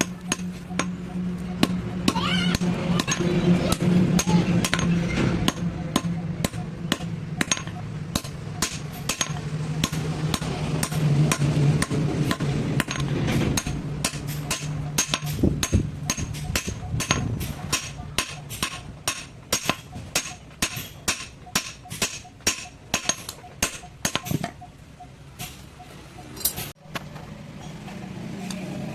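Hand hammer striking metal in a long run of quick, regular blows, about two to three a second, over a steady low hum.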